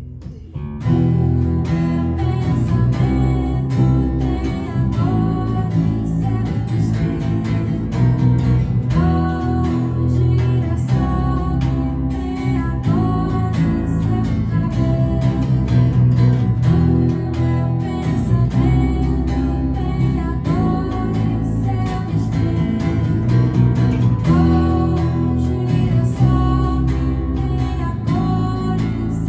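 An acoustic guitar and an electric guitar playing a song together, with a woman singing over them. The music dips briefly at the start and comes in fully about a second in.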